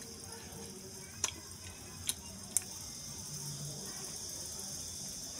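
Steady hiss and sizzle from an aluminium pressure cooker heating on a gas burner, with three sharp clicks in the first half.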